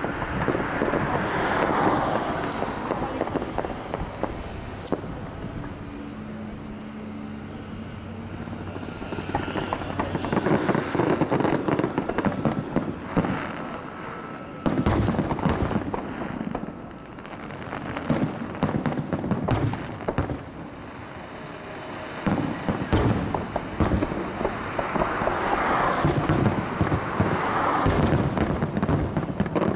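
Fireworks display: aerial shells and low fountains firing and bursting, a dense run of bangs over continuous crackling, with louder volleys around the middle and again near the end.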